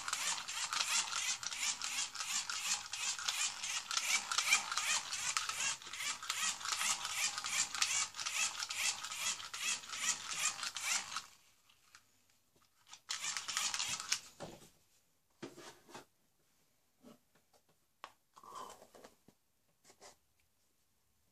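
Fast, continuous rattling from a small handheld plastic toy being shaken, stopping abruptly about eleven seconds in. A short burst of the same rattle follows, then a few faint handling noises.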